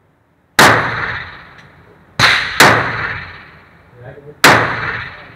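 Four pistol shots inside an indoor shooting range, each followed by a long echoing tail. The first comes about half a second in, two more follow close together about a second and a half later, and a last one comes about two seconds after that.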